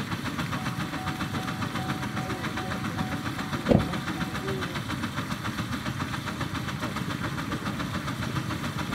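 Miniature Case steam engine running, its exhaust chuffing in a fast, even beat up the stack as it throws sparks. A single sharp bang cuts in a little before halfway.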